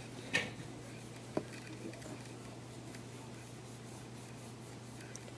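Quiet room with a steady low hum, broken by a short rustling scrape about half a second in and a brief click about a second and a half in.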